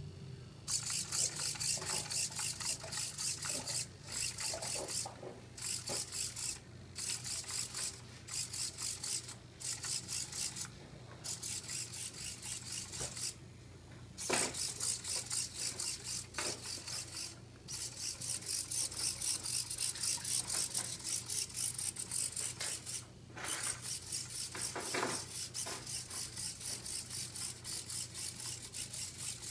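Hobby servo motors of a small Arduino-controlled walking robot buzzing in quick repeated strokes as it walks, pausing briefly several times and starting up again.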